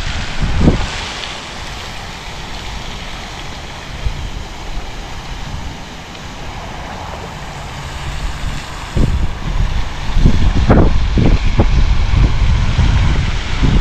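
Wind buffeting an action camera's microphone in gusts: a low rumble over a steady rush of air, easing in the middle and picking up again about nine seconds in.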